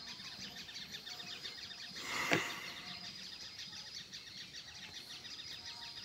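Field ambience: insects chirping in a fast, even rhythm with a held high tone, and birds calling. About two seconds in, a brief swell of noise ends in a sharp knock.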